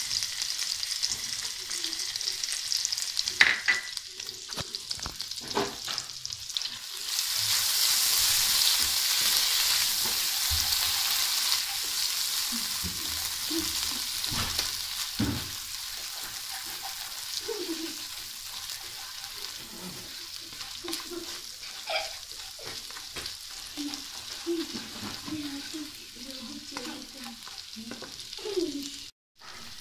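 Ginger-garlic paste sizzling as it fries in hot butter in a non-stick kadhai, stirred with a spatula that knocks and scrapes against the pan. The sizzle swells about seven seconds in, then eases off gradually.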